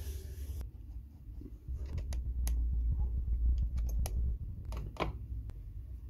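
Scattered sharp clicks and light knocks of wooden fence parts and their bolts and wing nuts being handled on a homemade router table, starting about two seconds in, the loudest about five seconds in, over a low rumble.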